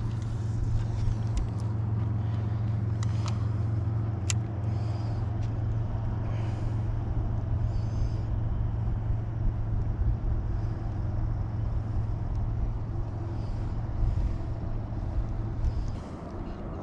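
A steady low motor hum that cuts off near the end, with a few light clicks in the first few seconds.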